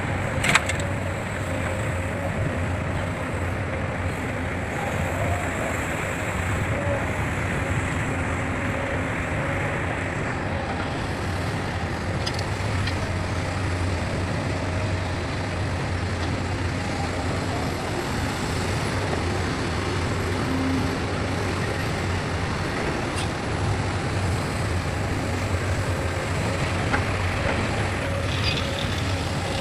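Heavy diesel machinery, an excavator and dump trucks, running steadily with a low hum, with a sharp knock about half a second in.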